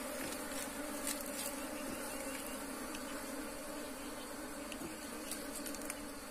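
A colony of wild honeybees, disturbed as its nest is cut open for the comb, buzzing in a steady hum.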